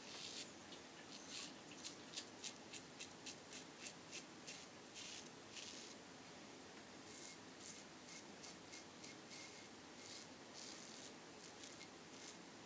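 Gillette Tech safety razor with a Rapira blade scraping through lathered stubble: quick, faint scratchy strokes, several a second, with short pauses between runs of strokes.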